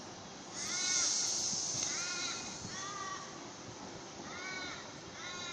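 A crow cawing five times, each call a short arched note. About half a second in, a loud hiss of air starts from the train standing at the platform and fades after about two seconds.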